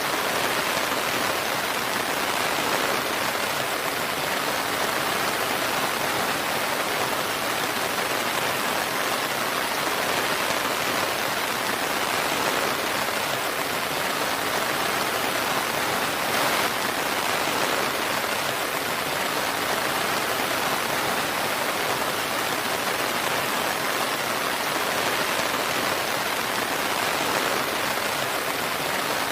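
Steady, heavy rain falling, a dense even hiss of raindrops with no thunder.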